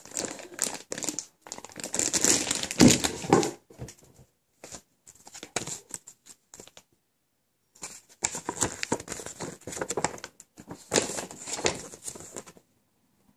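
Plastic bag crinkling as it is handled, then a folded paper leaflet rustling and crackling as it is opened out. The rustling comes in irregular bursts, with a pause about seven seconds in and a stop near the end.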